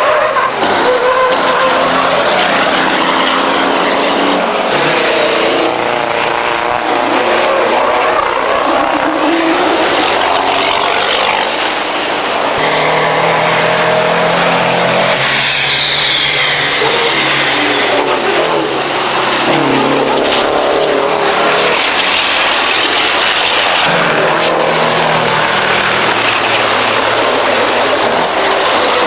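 Diesel racing trucks' engines racing on a circuit, the engine notes rising and falling repeatedly as the trucks accelerate, change gear and pass by.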